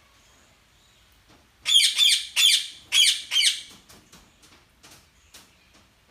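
A bird squawking: a quick run of about six loud, harsh calls, each falling in pitch, starting a little under two seconds in, then fainter short chirps.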